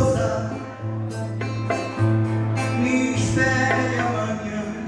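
Acoustic guitar playing with a singing voice.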